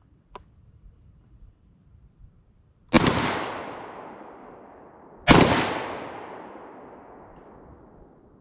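Two 12-gauge shotgun shots from a Black Aces FD12 bullpup, firing double-aught buckshot from a drum magazine, about two and a half seconds apart, each followed by a long echo fading out.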